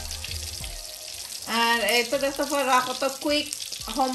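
Background music: a melodic line comes in about a second and a half in, over a steady hiss. Before that, only the hiss and a few soft knocks.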